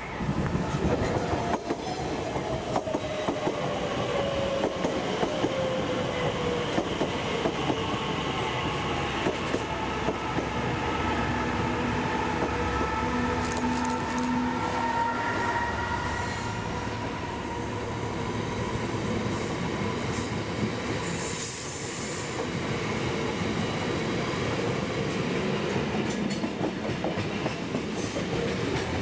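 Class 66 diesel-electric locomotive running through the station with a long rake of open box wagons: its EMD two-stroke V12 engine note, then the steady clatter of wagon wheels over the rail joints, with wheel squeal. A whining electric train on the next track, its pitch falling over the first several seconds.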